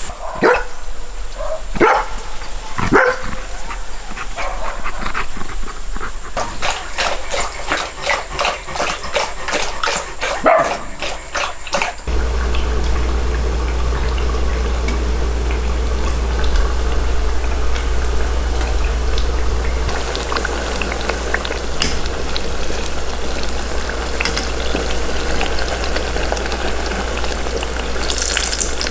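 Dogs barking and yipping in the first twelve seconds or so. About halfway through this gives way to a steady rushing noise with a low rumble.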